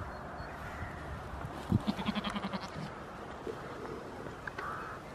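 A goat bleating once, a wavering, quavering call about a second long, near the middle.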